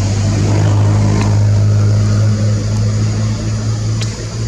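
Low, steady hum of a nearby motor vehicle's engine running, easing off a little near the end, over a faint steady high hiss.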